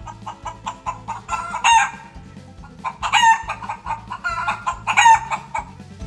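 Chickens clucking: a run of short clucks, broken by three louder drawn-out calls about a second and a half apart.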